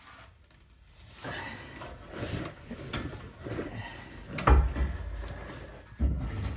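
A band-clamp exhaust pipe cutter is worked on a steel exhaust pipe, making irregular metal scraping and clicking strokes. A heavy thump comes about four and a half seconds in, and another near the end.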